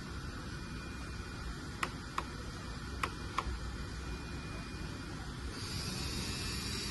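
Metal RC hydraulic excavator with its hydraulic pump running steadily, a few sharp clicks in the middle, and a hiss rising near the end.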